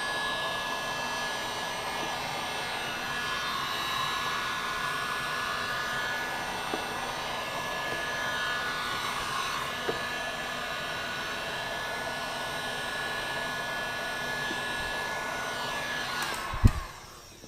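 Electric heat gun running steadily, its fan blowing with a faint whine. Near the end it is switched off and winds down, followed by a single knock.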